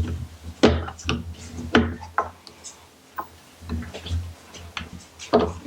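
Plastic clicks and knocks from a SeaLife Sport Diver phone housing being handled as a phone is test-fitted into it: several irregular sharp clicks, bunched in the first two seconds and again near the end.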